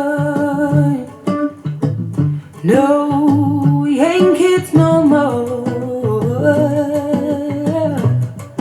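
Recorded song played through PureAudioProject Duet15 open-baffle loudspeakers and picked up in a small room: a singing voice holds long notes over plucked guitar.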